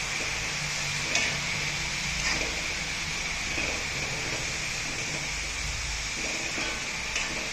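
Chopped banana blossom frying in a metal pan with a steady sizzle, while a steel spoon stirs it, scraping and clicking lightly against the pan a few times.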